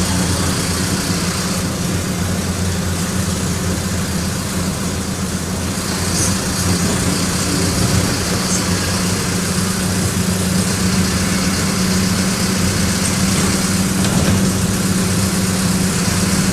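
Mercedes-Benz OM-904LA four-cylinder inline turbodiesel of an LO-915 bus, running steadily with a constant low drone.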